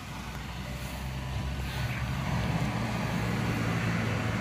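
Engines of snowplows, a small front-blade plow tractor and a plow truck, running as they clear a snowy street, a steady low hum that grows louder from about a second in as they come closer.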